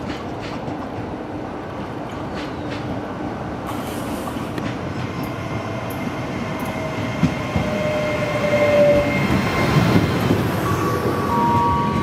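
Trenitalia Pop electric multiple unit pulling into a station platform, its running noise growing louder as it comes alongside. Thin wheel squeals sound from about five seconds in and again near the end.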